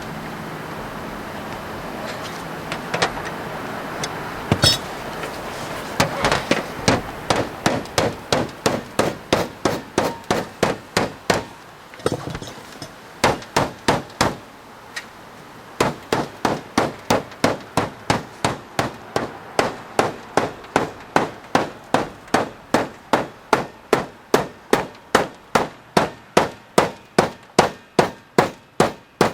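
Hammer blows on copper roofing sheet: a long run of sharp, even strikes, about two to three a second, with a couple of short pauses. The first few seconds hold only scattered strikes over a steady hiss.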